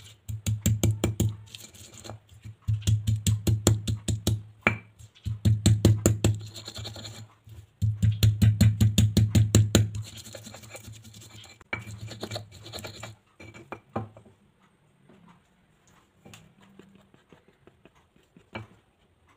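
Stone pestle pounding and grinding shallots, garlic, kencur and red chilli into a paste in a stone mortar (Indonesian cobek and ulekan). Four bursts of rapid strokes, each about two seconds long, give way to softer, slower grinding that fades after about 13 seconds, with one sharp tap near the end.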